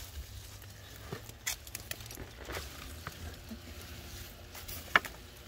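Lettuce leaves rustling and crackling with scattered soft clicks as a large lettuce plant is handled and pulled up out of the soil, with one sharp click near the end.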